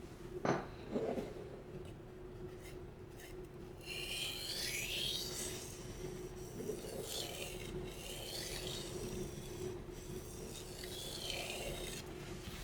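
Two sharp knocks near the start, then slow rasping strokes of a carbon-steel santoku edge drawn across a wet whetstone, a few seconds apart.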